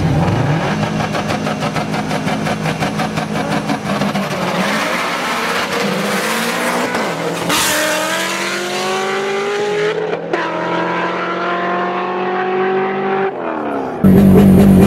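600 hp turbocharged Subaru STI flat-four at full throttle, its note rising as it accelerates with a gear change about ten seconds in, then falling away; tires squeal faintly. Near the end the sound cuts abruptly to a louder Subaru WRX engine held at steady high revs, ready to launch.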